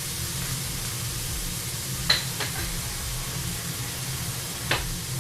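Minced beef frying in a pan, a steady sizzle, with two sharp clicks, one about two seconds in and one near the end.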